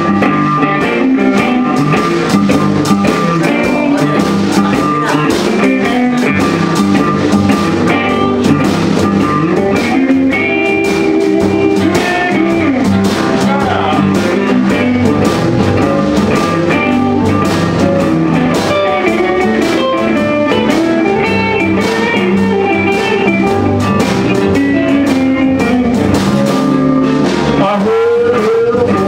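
Live blues band playing: electric guitars, keyboard, bass and drum kit.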